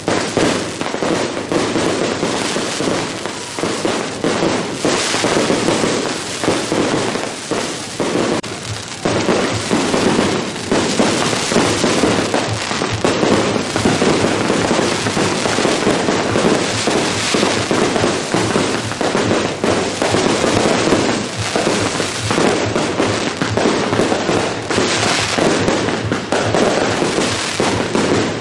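A long, unbroken barrage of firecracker strings and fireworks: dense, rapid cracks and bangs that never pause.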